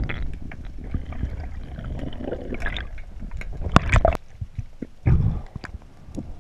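Muffled underwater water noise heard through a camera housing: water rushing and bubbling as the camera moves through kelp, with a cluster of sharp knocks and bubble bursts about four seconds in and a short low rumble just after five seconds.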